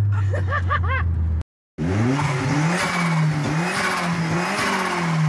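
Rover 220 Turbo Coupe's engine running, with a quick series of short rising chirps over it. The sound cuts out for a moment about a second and a half in, then the engine is heard again, its pitch wavering up and down slightly.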